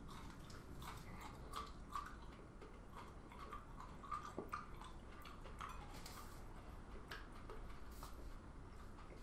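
Faint, irregular wet clicks of a person chewing a fresh super-hot chilli pod with the mouth closed.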